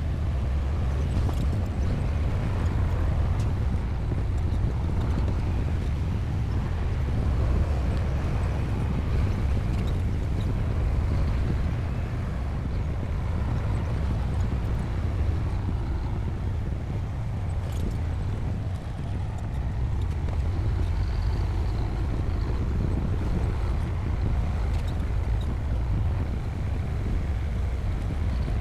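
Bulldozer's heavy diesel engine running steadily at work, a deep, continuous low rumble.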